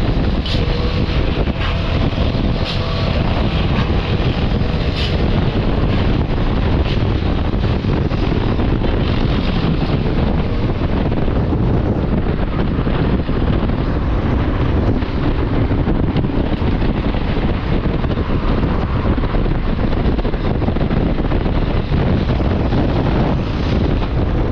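Steady wind rushing over the microphone of a motorcycle at riding speed, about 60 km/h, with the bike's engine and tyre noise underneath.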